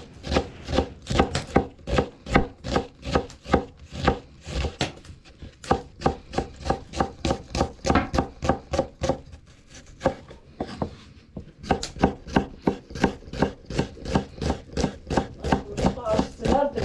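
A kitchen knife chopping food in a steady run of strokes, about three to four a second, with a brief pause about ten seconds in before the chopping resumes.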